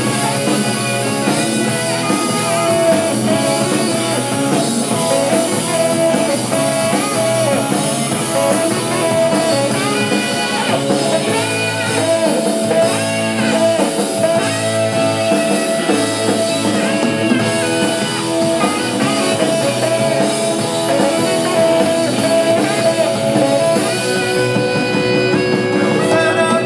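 Live rock band playing an instrumental passage with electric guitar and drums.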